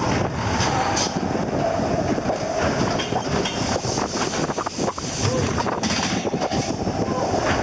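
Roller coaster car running along its tubular steel track, a steady rattle and clatter with a wavering wheel whine.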